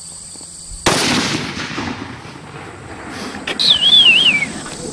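A single rifle shot about a second in, its report rolling away over the next two seconds. Near the end a loud, high whistle wavers and falls in pitch.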